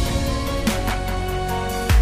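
Background music with a beat and sustained tones, and a heavy bass hit near the end.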